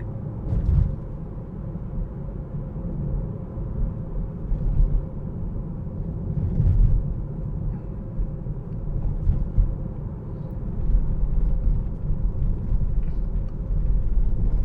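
Steady low road and tyre rumble inside a moving Tesla Model 3, an electric car, with a few brief louder bumps.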